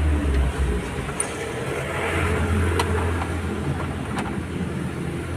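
Truck engine running steadily with a low, even hum, with two sharp clicks about three and four seconds in.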